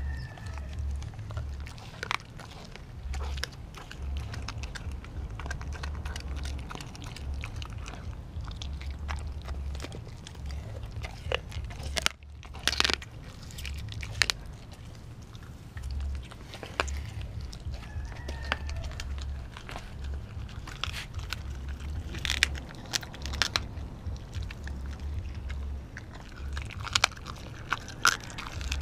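A pitbull–German shepherd mix chewing raw meat on the bone, held right at its mouth: irregular bites and crunches with sharp clicks of teeth, heard close up.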